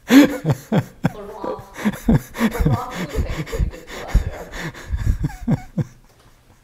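A man laughing hard in a long run of short bursts, dying away about six seconds in.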